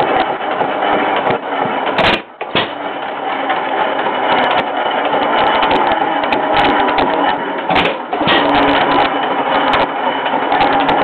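Fairbanks-Morse Model Z single-cylinder hit-and-miss engine running, a loud, busy clatter from its valve gear and moving parts, with a couple of sharper knocks, about two seconds in and again near eight seconds.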